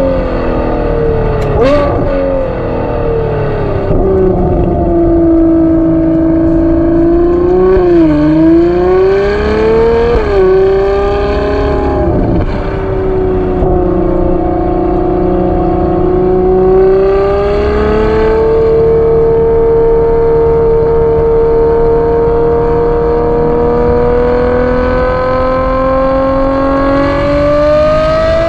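Ferrari 812 GTS's naturally aspirated V12 running under way, heard from the driver's seat: a smooth, high engine note that falls in pitch over the first few seconds, dips and climbs again about eight to ten seconds in, holds steady, then rises slowly toward the end as the car accelerates.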